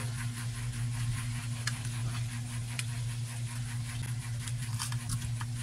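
A steady low hum with faint, scattered clicks and smacks of people eating rice and fried fish by hand.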